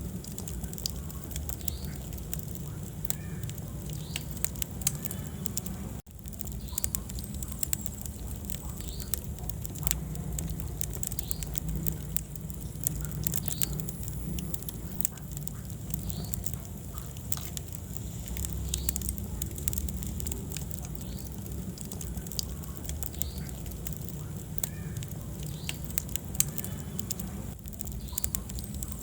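Wood fire burning in a fireplace, crackling and popping irregularly over a steady low rumble, with a brief drop in level about six seconds in.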